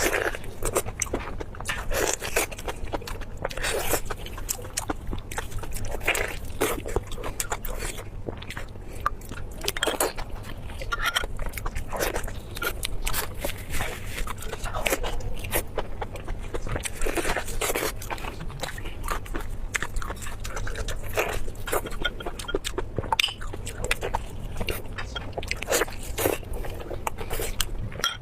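Close-miked eating sounds: a person chewing and biting food with wet, sticky mouth clicks and smacks, coming irregularly several times a second.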